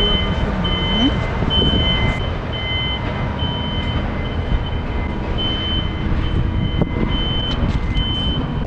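Vehicle reversing alarm beeping steadily, about two high beeps a second, with a short pause midway, over a steady low rumble.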